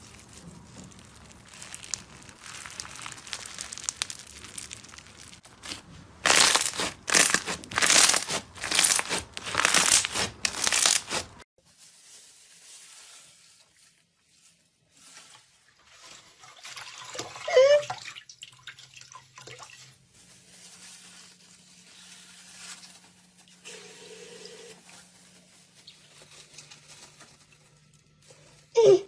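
Slime being squeezed and pressed by hand, crackling and crunching, with about six loud crunchy squeezes in a row. After a sudden cut it gives way to quieter, softer squishing with a few faint squeaks.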